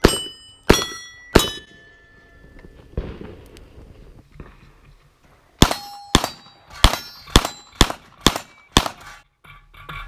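Pistol shots at steel plate targets, each followed by the ringing clang of a struck plate. Three shots come in the first second and a half, then after a pause of about four seconds a fast string of about ten.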